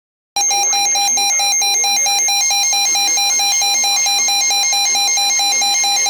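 Electronic weather-alert alarm from a weather radio, signalling a warning: a loud tone that warbles rapidly between two pitches, starting about a third of a second in.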